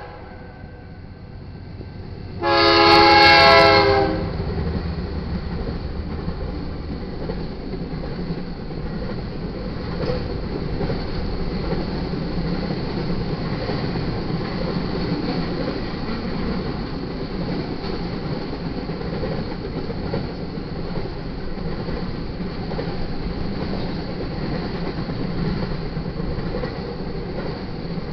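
Air horn of a BNSF freight train led by GE Dash 9-44CW locomotives, sounding one loud chord of several tones about two and a half seconds in and lasting about a second and a half. Then the steady noise of the long double-stack intermodal train passing over the crossing, with the clatter of its wheels on the rails.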